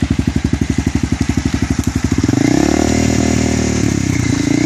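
Honda CBR300R single-cylinder engine through an aftermarket Akrapovič slip-on exhaust. It idles with a quick, even beat, then about two seconds in the throttle is opened and the revs climb and hold at a higher note, easing back near the end.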